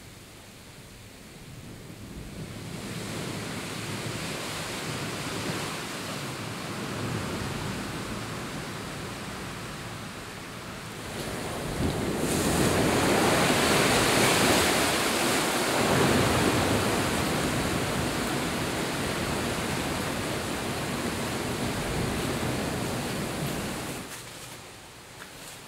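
Sea surf breaking on the rocks outside a sea cave, with wind, heard as a steady rushing hiss. It grows about three seconds in, swells much louder from about twelve seconds in as the cave opens onto the water, and falls away again near the end.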